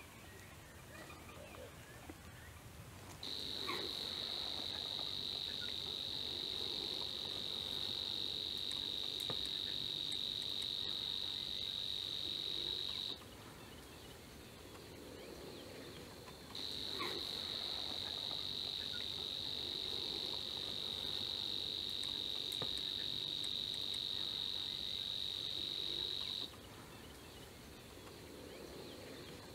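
A steady, high-pitched buzzing trill, typical of a cricket. It runs in two long stretches of about ten seconds each, starting and stopping sharply, and goes on faintly in the gaps.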